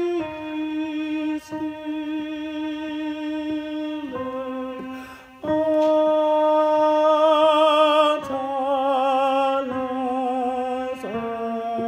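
A solo alto voice singing a slow choral line in long held notes that step to a new pitch every few seconds. The higher notes about halfway through waver with vibrato.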